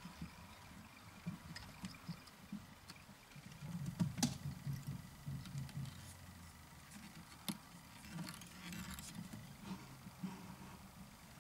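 Faint handling noises of fly tying at the vise: fingers working thread and wing fibres, with scattered light rustles. Two sharp clicks stand out, one about four seconds in and one about seven and a half seconds in.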